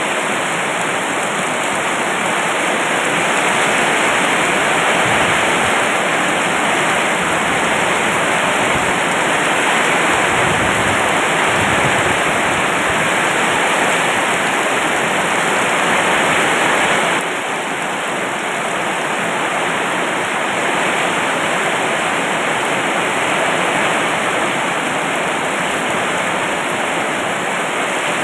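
Heavy rain pouring steadily, a dense even hiss of water; it turns slightly quieter about two-thirds of the way through.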